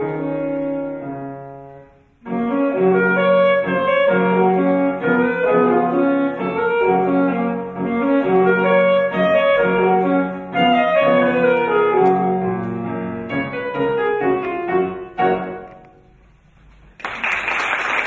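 Alto saxophone and piano playing a waltz; the music breaks off briefly about two seconds in, resumes, and dies away on a final note. About a second before the end, applause breaks out.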